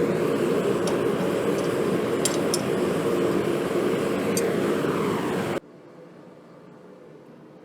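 Loud, steady roar of workshop equipment running, with a few faint high ticks. It cuts off abruptly about five and a half seconds in, leaving a faint steady hum.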